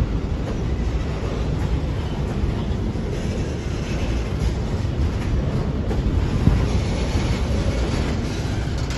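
Freight train rolling past on the line: a steady, low noise of wheels and wagons that keeps on without a break.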